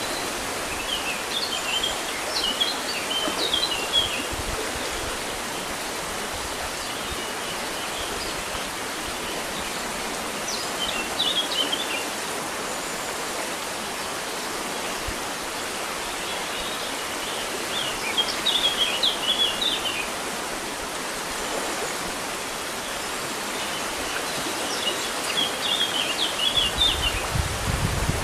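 River water running steadily, with a small songbird chirping in short phrases about four times, each a second or two long. A low rumble comes in near the end.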